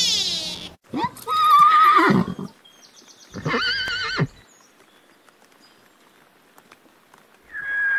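Horse whinnying: a long quavering whinny about a second in, a shorter wavering one at about three and a half seconds, and another beginning near the end.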